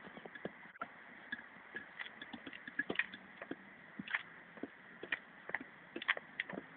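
Playground spring rider rocking, its coil spring and fittings giving irregular light clicks and knocks, several a second, over a faint steady hiss.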